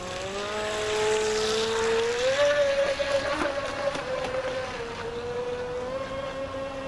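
Brushless electric motor of a Playtron Candy 3S radio-controlled speedboat whining at speed, its pitch rising over the first couple of seconds and then holding steady with a small dip later on. A hiss of water spray comes under the whine as the boat turns early in the run.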